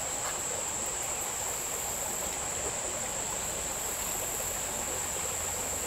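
Steady high-pitched insect chorus, like crickets or katydids, over the soft even rush of a small mountain stream.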